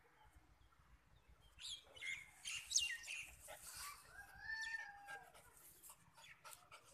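Faint outdoor birdsong: a few quick, steeply falling chirps from small birds, then a rooster crowing once, about four seconds in, as a single rising-then-falling call lasting about a second.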